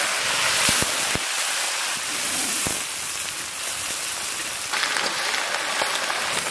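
Wet, freshly washed vegetables sizzling and spattering in hot oil in an aluminium kadai, a loud steady hiss with a few sharp pops in the first three seconds.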